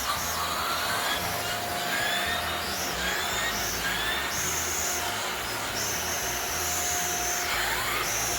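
Shark Rotator Lift-Away vacuum cleaner running steadily in upright mode while cleaning the floor.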